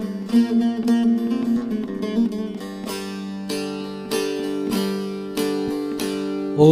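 Instrumental interlude of a Turkish folk song: plucked string instruments play the melody over held notes, with sharp plucked notes standing out every second or so.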